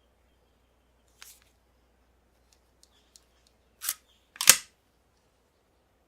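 Hard plastic clicks from handling a CSM Lost Driver toy belt: a soft click about a second in, a few faint ticks, then two sharp snaps a little over half a second apart, the second the loudest.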